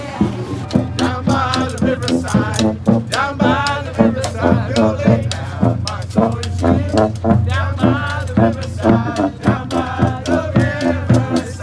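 Street brass band playing a second-line tune: horns carrying a wavering melody over a steady drum beat.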